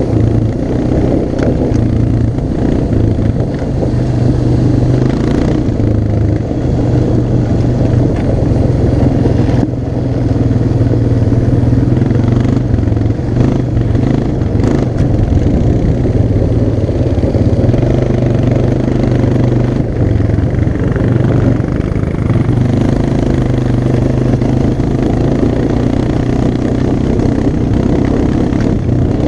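ATV engine running while being ridden over rough dirt and grass, holding a fairly steady speed with small changes in engine pitch. A few brief clatters come through partway along.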